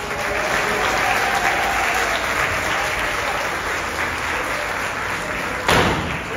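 Audience applauding steadily, with a single sharp pop near the end.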